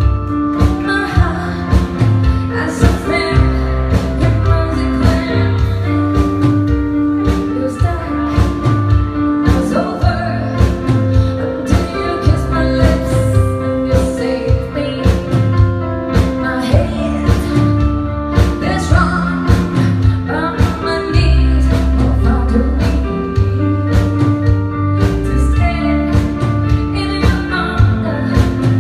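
A song sung over instrumental backing, with a strong bass and a steady beat.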